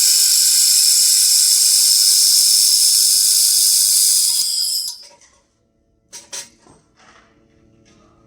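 Portable laser welding machine hissing steadily and loudly during a weld, cutting off sharply about five seconds in. A few faint clicks follow.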